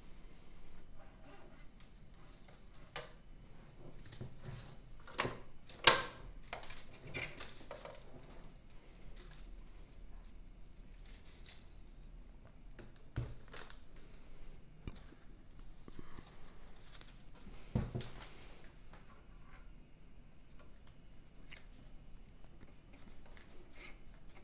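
Hands handling plastic 3D-printer filament, a filament spool and the feed tube at the printer's inlet: scattered rustles and small plastic clicks, the loudest a sharp click about six seconds in.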